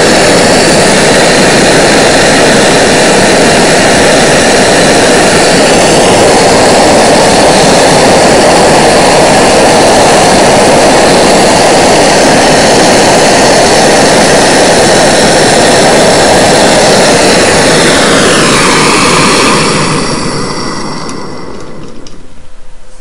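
MAPP gas hand torch burning with a loud, steady roar as it heats a copper joint for brazing. About 18 seconds in its pitch falls and the roar dies away, as the torch is shut off.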